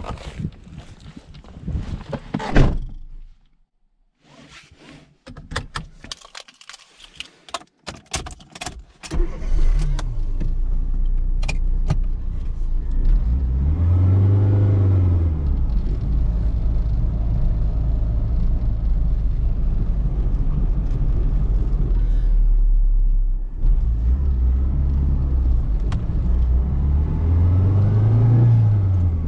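A sharp thump about two and a half seconds in, then a scatter of clicks and rattles. About nine seconds in, the Fiat Seicento Sporting's 1.1-litre four-cylinder petrol engine starts and settles into a steady idle. It is blipped up and back down once about five seconds later and again near the end.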